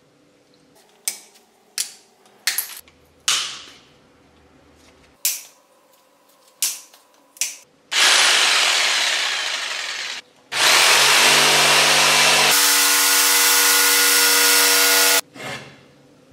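A handful of sharp knocks and clicks from handling the jigsaw, then the electric jigsaw runs in two spells, about two seconds and then about five, sawing through a wooden board. A steady motor whine comes through in the second spell before it stops.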